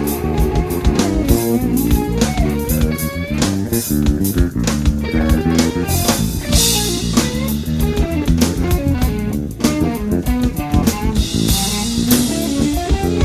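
Electric bass played busily with melodic runs over a drum kit in an improvised jam. Cymbal washes come in about halfway through and again near the end.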